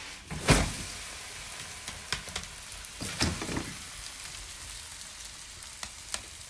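Butter and börek dough sizzling steadily on a hot copper tray (sini) over embers. A loud knock about half a second in and a few more knocks around three seconds in come from the tray being handled.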